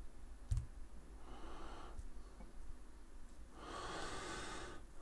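Quiet room with a soft low thump about half a second in and faint breaths, the longest one near the end.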